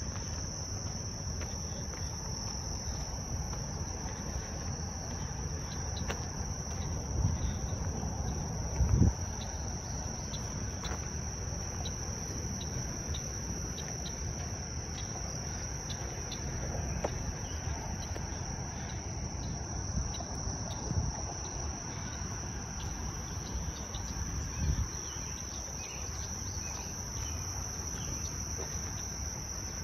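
Steady, high-pitched drone of an insect chorus, with a few short, dull low thumps scattered through it.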